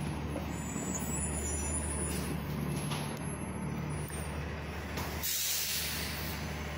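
City bus engine idling with a steady low hum, and a sudden hiss of its air brakes about five seconds in, lasting a second or so.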